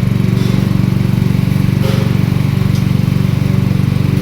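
Coconut milk pressing machine running steadily, its small engine firing with a fast even pulse at a constant speed.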